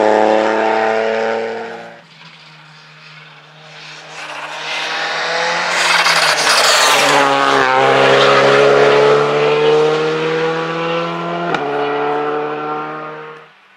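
A rally car's engine, high in the revs, fades out in the first two seconds. Then a Škoda Fabia rally car's turbocharged four-cylinder comes in, passes close about seven and a half seconds in with a drop in pitch, and accelerates away, its revs climbing with a gear change about eleven and a half seconds in, before cutting off.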